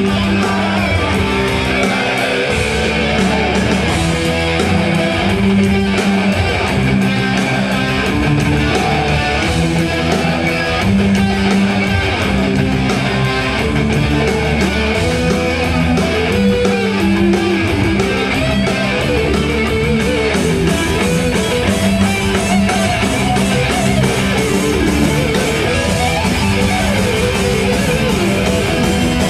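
Heavy metal band playing live and loud: an instrumental stretch led by electric guitar over bass and drums, with no singing.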